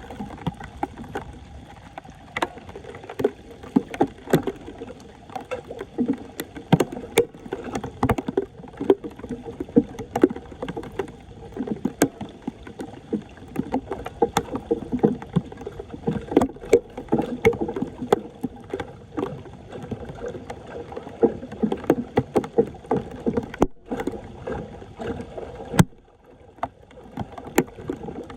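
Irregular splashing and sloshing of shallow floodwater, with scattered clicks and knocks, as debris is worked loose at a clogged street drain. The splashing stops briefly near the end.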